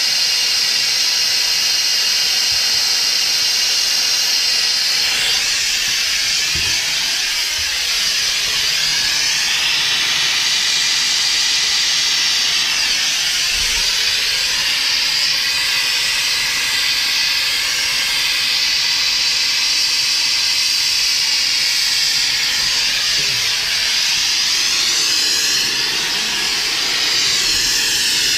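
Gas hand torch's blue flame hissing steadily as it heats copper pipe for soldering.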